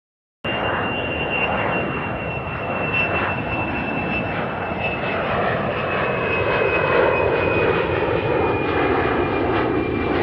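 Jet airliner engines running, a steady noise with a high whine that drifts slightly down in pitch; it starts abruptly about half a second in.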